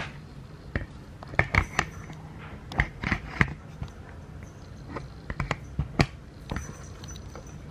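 Irregular sharp clicks and taps as a kitten bats and bites a small toy ball, in quick clusters of two to four, over a low steady hum.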